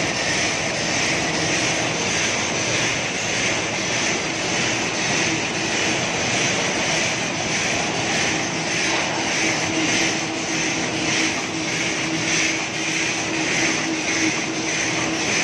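Automatic napkin and wooden-cutlery packaging machine running: a steady mechanical drone with a regular pulsing beat and a steady hum.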